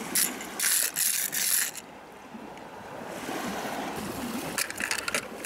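Die-cast toy car pushed by hand over loose gravel, its wheels and the stones crunching in a few bursts during the first two seconds. A steady outdoor hiss follows, with a few short clicks near the end.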